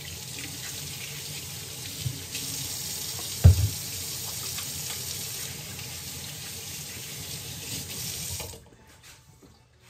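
Kitchen sink tap running while hands are washed under it, with one sharp knock about three and a half seconds in. The water shuts off about eight and a half seconds in.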